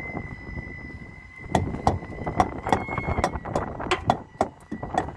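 Semi-trailer tires being thumped during a pre-trip inspection: about a dozen sharp knocks at roughly three a second, starting about a second and a half in, to check that the tires hold air. A faint steady high whine sits underneath.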